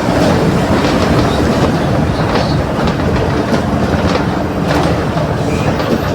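Mercedes-Benz OF 1721 BlueTec 5 bus diesel engine running steadily while the bus moves, a loud low drone with light rattles through it.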